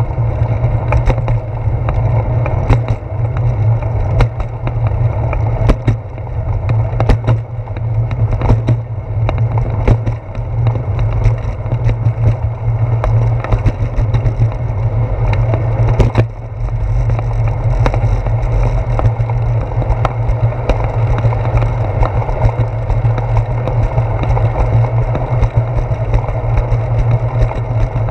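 Bicycle ride noise picked up by a handlebar-mounted GoPro in its case: a steady low rumble of tyres rolling on concrete, with frequent irregular clicks and knocks as the bike jolts over pavement seams and cracks, two of them louder about seven and sixteen seconds in.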